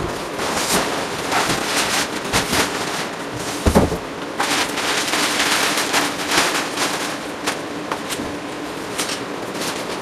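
Plastic packing cover being pulled off a new washing machine, crackling and rustling densely, with a dull thump about four seconds in as packing is handled.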